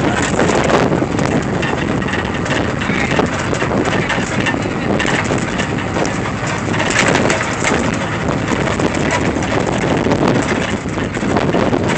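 Open-air trolley in motion: a steady ride noise of the vehicle running along, with wind buffeting the phone's microphone.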